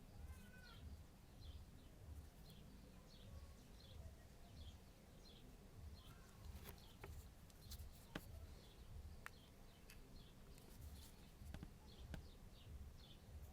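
Faint ringtone from a Samsung Galaxy Y (GT-S5360) phone's speaker: short high chirps repeating about twice a second over soft low pulses, with a few clicks.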